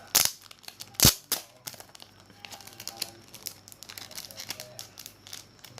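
Packaging being crinkled and handled during unboxing: two sharp snaps, about a quarter-second and about one second in, then a run of small irregular crackles.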